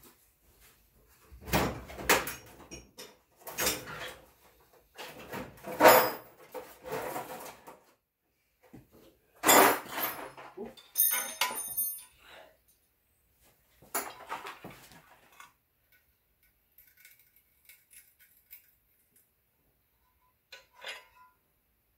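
Steel wrenches and a small bearing puller clinking and clattering against each other and the aluminium transfer case as the puller is set on the front output shaft bearing and tightened. It comes in several bursts over the first fifteen seconds, with a short metallic ring about eleven seconds in, then only a few faint clicks.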